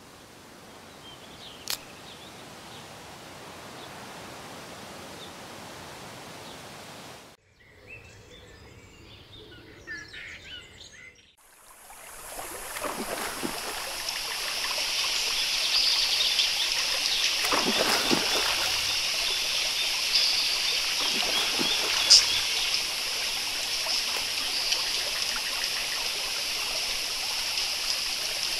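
Nature ambience for an animated jungle scene: a steady hiss, then from about twelve seconds in a running stream with bird chirps over it. A few heavier water sounds and a sharp click near the end sit on top of the stream.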